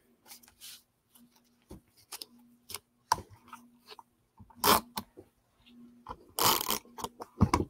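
Paper pieces rustling and scraping as they are picked up, slid and pressed onto a scrapbook page, with a few short, louder rasps in the second half.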